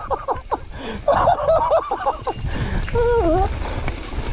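Mountain bike running down a dirt trail: a low rumble of tyres and wind noise on a helmet camera, with a rider's wordless voice over the first two seconds and a short drawn-out call about three seconds in.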